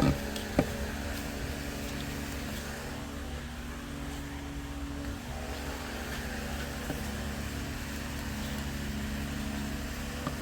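Steady low mechanical hum, with a couple of light clicks near the start.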